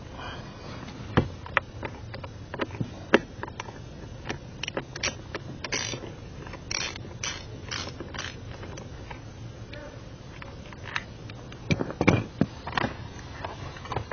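Irregular clicks, knocks and short rustles of hands working on a car's AC blower fan assembly during removal. There is a sharp knock about three seconds in and a cluster of heavier knocks around twelve seconds.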